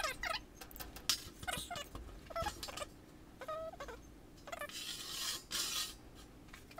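A white marking stick dragged across sheet steel: a scatter of short, high squeaks that bend in pitch, and about five seconds in a scratchy hiss of about a second as a line is drawn.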